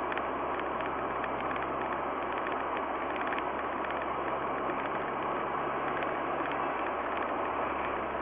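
Steady road and engine noise inside a car cruising at about 60 km/h, picked up by a dash camera, with a faint low hum under it.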